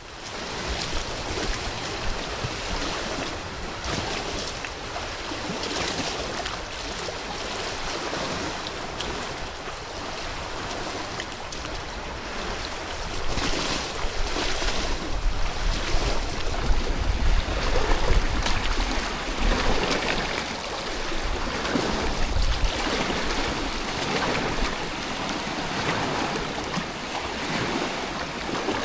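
Swollen river water rushing and surging, with wind buffeting the microphone, which grows heavier about halfway through.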